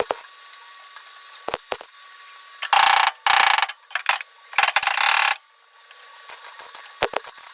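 MIG welder laying three short tack welds on car floor-pan sheet steel, each a burst of crackling, frying hiss that starts and stops sharply, the last one the longest; scattered light clicks and taps around them.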